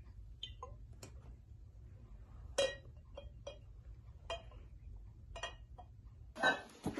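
A series of light, irregular clinks and taps of small hard objects, several with a brief ringing tone, over a low steady hum. A louder knock comes near the end.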